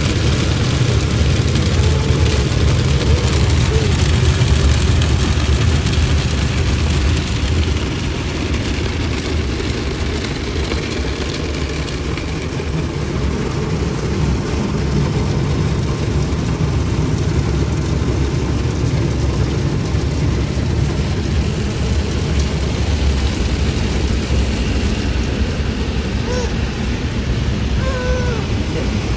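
Automatic car wash running, heard from inside the car's cabin: a steady, loud rumble and hiss of the wash machinery and water on the car. It eases a little after about seven seconds.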